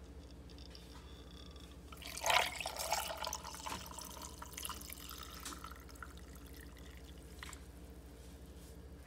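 A pale drink poured from a glass pitcher into a glass of ice: a splash about two seconds in, then liquid running into the glass and tapering off over the next few seconds.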